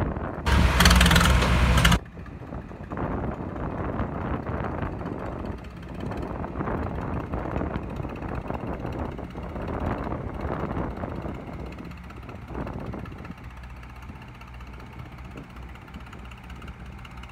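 Tractor engines labouring under heavy load as a John Deere 5050 D and a Farmtrac 60 pull against each other. A very loud, rough blast lasts about a second and a half, starting about half a second in. Near the end the engines settle to a steadier, quieter run.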